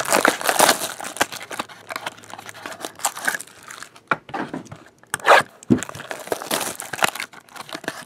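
Clear plastic shrink-wrap being torn and crinkled as it is pulled off a sealed trading-card box, in irregular rustles with a louder crackle about five seconds in.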